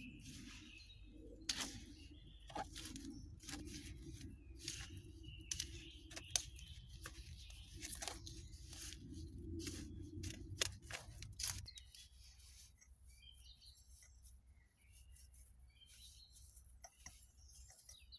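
Hands squelching and scooping in a bucket of wet, dark mud-like mortar, with sticky squishes and a run of short crackling clicks. About two-thirds in this handling noise stops abruptly, leaving faint bird chirps and soft dabbing sounds as the mix is pressed onto the bricks.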